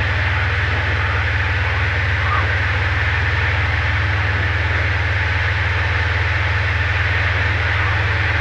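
Diamond DA20 light aircraft's piston engine and propeller droning steadily in flight, heard inside the cockpit along with a steady rush of airflow noise.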